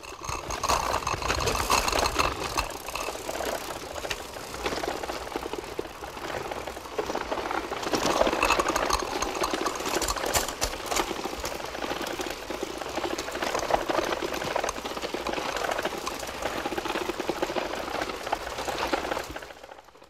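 Bicycle mechanism making a dense, rapid clicking and rattling.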